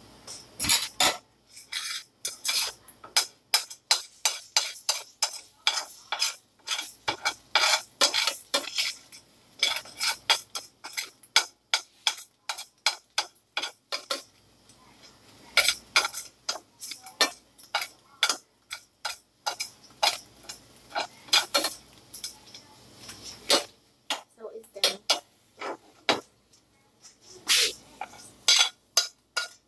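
A utensil stirring and scraping in a pot and frying pan on the stove: rapid, irregular clinks and scrapes against the cookware, with a few brief pauses.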